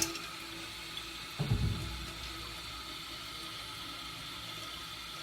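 Kohler Wellworth toilet tank refilling after a flush: the fill valve hisses steadily as water runs in. A click at the start and a brief low sound about a second and a half in.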